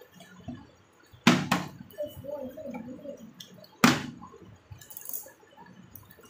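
Partly filled plastic water bottle tossed in a bottle flip, landing on a tiled floor with a sharp thud, twice about two and a half seconds apart; after the second landing it tips over onto its side.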